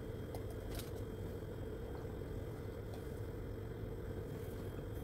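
A steady low hum, with a few faint clicks about a second in.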